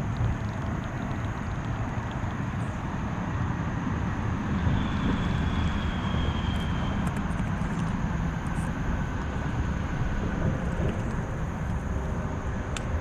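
Steady rumble of distant interstate highway traffic mixed with the rush of river rapids.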